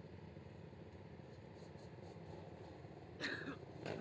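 Racing ATV engines idling together at the start line, a faint steady low rumble. Two short, louder sounds come near the end.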